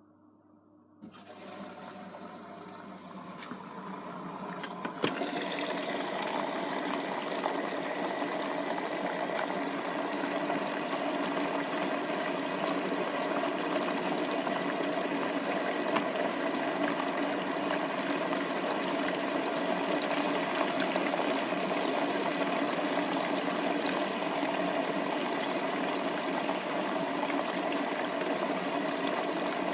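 Beko WM74165W washing machine filling with water at the start of its wash cycle: the water starts suddenly about a second in, builds over the next few seconds, then rushes in steadily.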